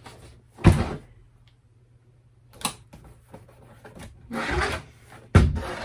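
A cardboard kit box being handled on a tabletop: a sharp knock early on, a lighter click near the middle, a stretch of rubbing and rustling, then another sharp knock near the end.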